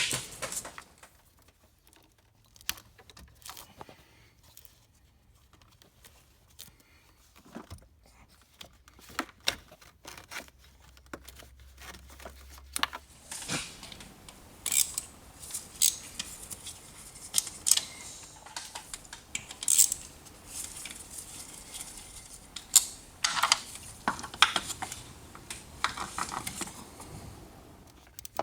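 Irregular clicks, taps and light knocks of small hard parts and hand tools being handled, sparse at first and busier from about halfway through, with no engine running.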